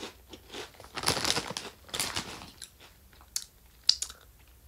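A person chewing a mouthful of potato chips, with crisp crunches coming at irregular intervals.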